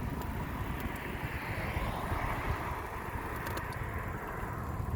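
Road traffic: a passing vehicle's tyre and engine noise swells and fades about two seconds in, over a steady low rumble.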